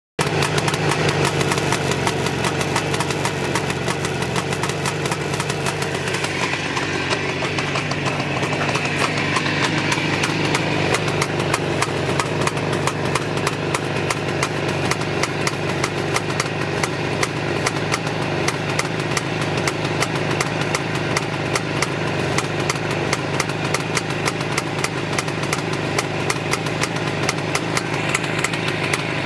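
Jawa 634 350 two-stroke twin motorcycle engine idling roughly and unevenly. One cylinder fires irregularly compared with the other, which the owner describes as one combustion chamber going semi-active.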